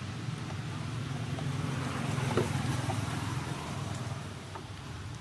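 Steady low engine rumble of motor traffic, swelling louder about two seconds in as a vehicle passes, then easing off.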